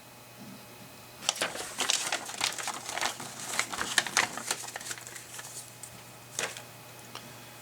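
Handling noise: a rapid run of light clicks and rustles lasting about three seconds, then a single click a couple of seconds later.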